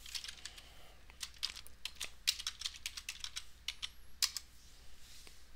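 Computer keyboard being typed on: irregular runs of key clicks as a login name and password are entered.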